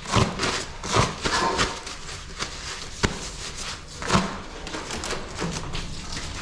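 Paper towels pulled from a wall-mounted dispenser and crumpled in the hand: several short bursts of paper rustling, with one sharp click about three seconds in.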